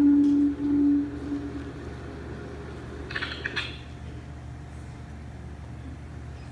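A children's song ends on one held note that fades out within the first second and a half. A steady low hum remains, with a brief clink about three seconds in.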